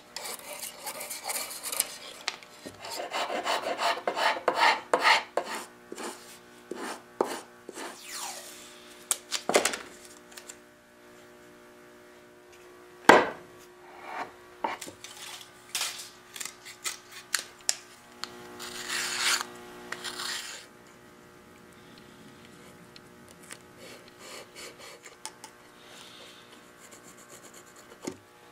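Hand file rasping on wood in spurts of short strokes, with a single sharp knock about halfway through. Near the end only faint, scattered scraping is left.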